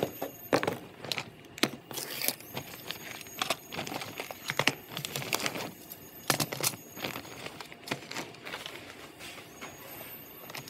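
Irregular clatter of sharp clicks and knocks as dental lab gear is handled and set down on a bench: a stainless steel instrument cassette and a plastic storage box.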